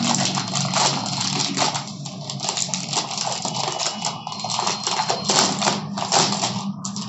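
Crinkling and rustling of packaging with many small clicks and knocks, as a boxed keyboard and its braided cable are handled and unpacked.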